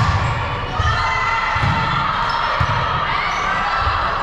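Echoing gym sound during a volleyball rally: a hubbub of voices over low thuds that repeat about once a second.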